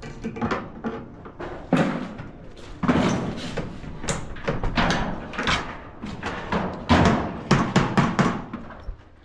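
A run of irregular knocks and bangs, the loudest near two seconds in, three seconds in and around seven to eight seconds in.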